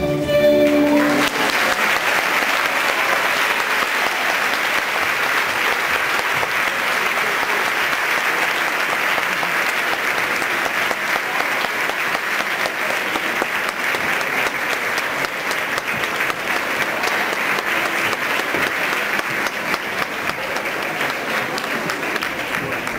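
Audience applauding steadily in a theatre; the dance music ends about a second in.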